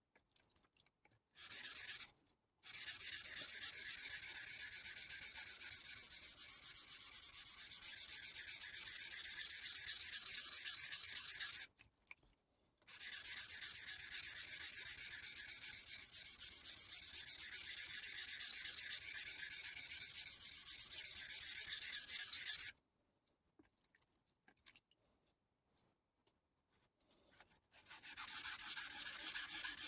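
Steel knife blade stroked back and forth on a wet, slurry-forming Taidea whetstone: a steady, gritty scraping hiss. It runs in two long stretches of about ten seconds with a brief break between them, stops for several seconds near the end, then starts again.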